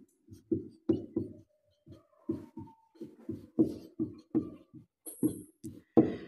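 Marker writing on a whiteboard: a quick run of short strokes and taps as the words are written out.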